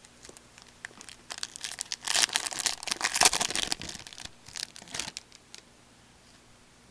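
Crinkling and tearing of a hockey card pack wrapper being opened, with a dense burst of crackling in the middle that thins to a few crackles and then stops.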